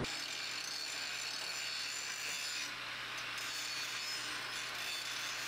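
Angle grinder grinding on steel roll-cage tubing: a steady grinding hiss with a thin high whine, easing for a moment about three seconds in.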